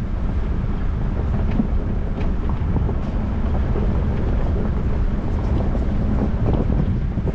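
Wind buffeting the microphone over the steady low rumble of a Ford Bronco driving along a road.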